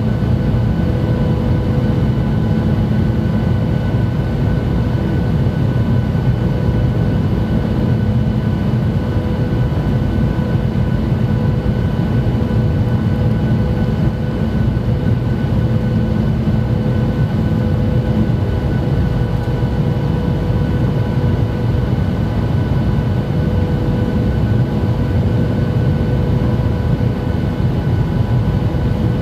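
Cabin noise inside a Boeing 737-800 in flight: the steady rush of airflow and the drone of its CFM56-7B turbofan engines, with several steady whining tones over the top. A low hum underneath fades out about two thirds of the way through.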